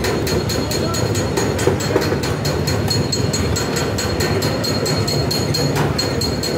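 Steady street din of idling and creeping CNG auto-rickshaws and motorcycles in a traffic jam: a continuous engine rumble with a fast, even ticking.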